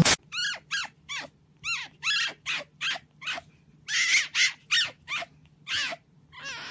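Fennec fox, asleep, giving a string of short high squeaky yips, about two a second, each rising then falling in pitch. The calls are loudest about four seconds in. A faint steady low hum runs underneath.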